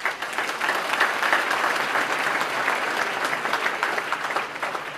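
Audience clapping, breaking out suddenly and starting to die down near the end.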